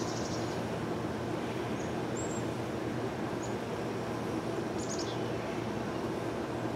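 Steady hum of a honeybee colony in an opened top-bar hive, with a few short bird chirps over it.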